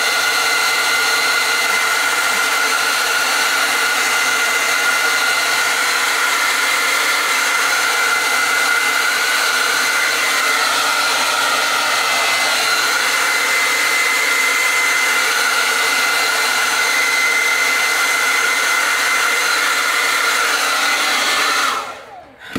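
Handheld hair dryer with a comb attachment running steadily as it blow-dries a wig's hair: a rush of air with a steady whine over it. It switches off near the end.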